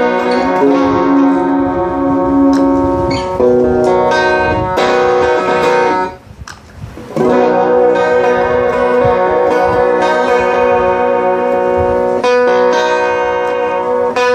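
Electric guitar played through a chain of 1989–1992 Boss compact effect pedals, ringing out sustained chords. The playing stops for about a second around six seconds in, then resumes.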